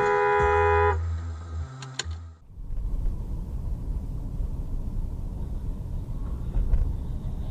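A car horn sounding one steady note stops about a second in. After a short dip, the low rumble of a car driving along takes over.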